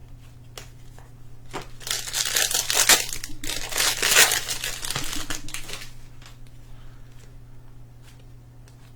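Crinkling and tearing of a trading-card pack's plastic wrapper as it is ripped open and crumpled. It starts about a second and a half in and fades out after about six seconds.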